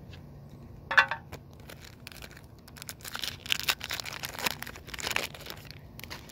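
Foil wrapper of a Pokémon card booster pack crinkling and tearing open in a flurry of crackles from about three seconds in, after a brief sharp sound about a second in.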